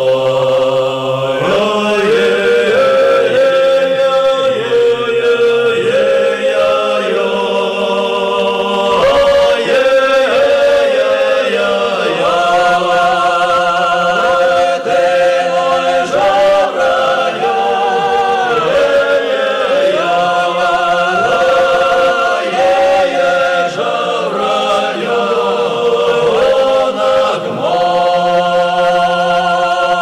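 Soundtrack music: voices singing slow, chant-like choral phrases, long held notes with vibrato.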